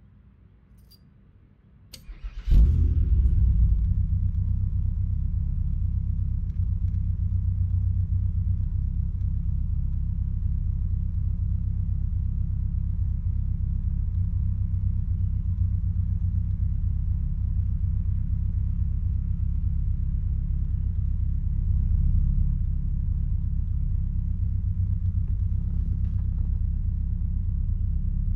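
Car engine started with the ignition key: a couple of faint clicks, then the engine catches suddenly about two and a half seconds in and settles into a steady low idle.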